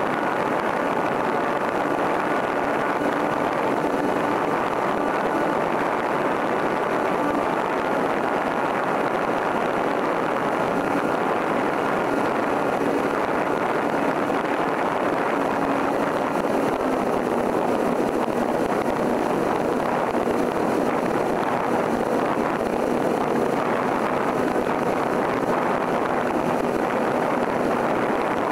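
Cessna 172M's four-cylinder Lycoming O-320 engine and propeller running steadily in flight, heard from inside the cabin with rushing air noise. The engine note drops slightly about halfway through.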